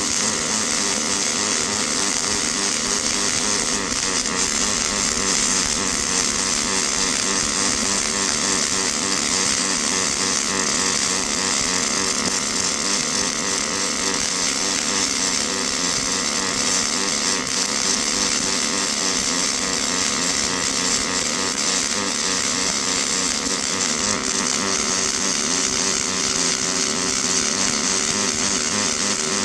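Double-pulse MIG welding arc on stainless steel pipe, burning steadily without a break as the torch runs around the joint.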